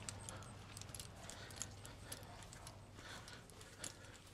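Faint footsteps in slide sandals on a concrete driveway, with small clicks and jingles from keys hanging on a lanyard, over a steady low hum.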